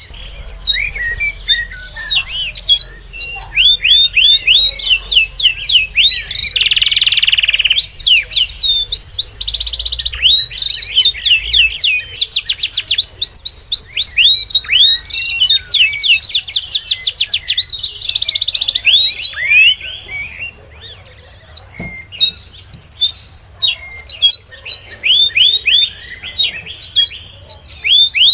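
Small birds chirping densely and rapidly, a chorus of short, high, downward-sweeping chirps several to the second, with a brief lull about two-thirds of the way through.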